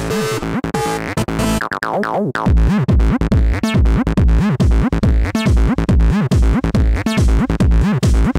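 Electronic music: synthesizer notes with falling pitch sweeps, then a heavy drum-machine kick beat comes in a little over two seconds in, about two beats a second.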